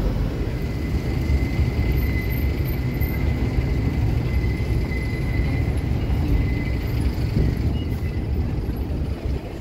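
Busy city street ambience: a steady rumble of road traffic. A faint, steady high whine runs through the middle.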